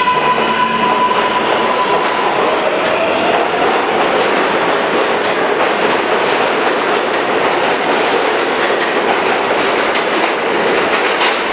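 An R143 subway train departing the station and picking up speed past the platform. A whine fades out in the first couple of seconds, then comes a steady rush of steel wheels on rail with scattered clicks over the rail joints.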